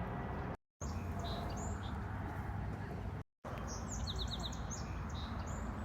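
Wild birds chirping, short high calls with a quick run of four descending notes a little past the middle, over a steady low background rumble. The sound cuts out briefly twice.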